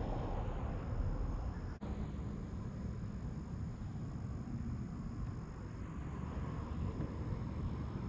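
Steady low outdoor rumble with no distinct events, broken by a brief dropout about two seconds in. A faint, thin high tone sits above it, stopping and resuming a few times.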